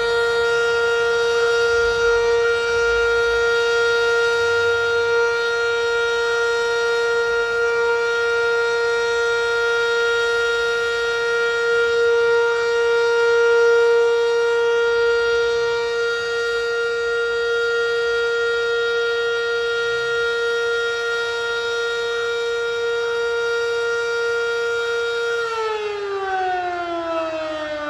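Fire station's house siren sounding a loud, steady held tone, then winding down, its pitch falling, near the end. The siren is calling out the volunteer fire company to a fire.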